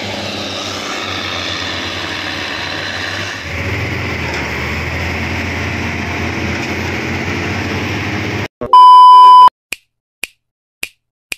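Diesel engine of a hydraulic excavator running steadily at a log pile; it gets a little louder about three and a half seconds in. It cuts off abruptly, followed by a very loud beep lasting about a second and then a string of short sharp clicks, about two a second.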